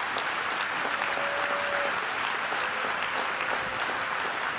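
A large crowd applauding steadily in a big hall. Two faint held tones sound over it, one about a second in and a second shorter one a little later.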